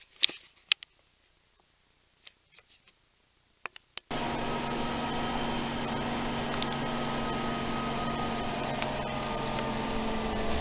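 A few handling clicks and knocks, then about four seconds in a sudden cut to the steady cabin noise of a moving bus, with a low hum under it.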